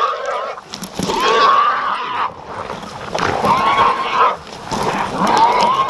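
Three long, wavering animal cries about two seconds apart, heard over the rustling and knocks of dogs running through brush with the camera.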